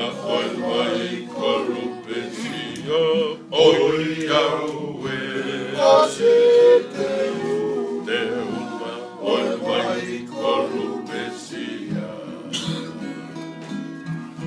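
Several men singing a song together to strummed acoustic guitars, one of them a twelve-string.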